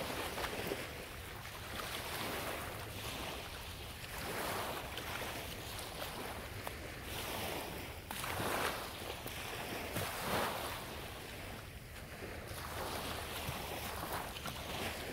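Small waves washing up and draining back on a sandy shore in repeated surges every couple of seconds, with wind blowing across the microphone.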